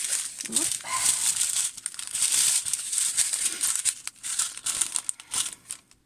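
Crinkling plastic packaging: the small plastic bags of diamond-painting drills being handled and unwrapped, with a dense rustle that fades out near the end.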